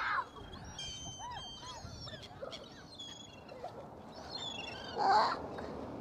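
A flock of gulls and Canada geese calling over one another: many short, high squeals and honks overlapping, with one louder cry about five seconds in.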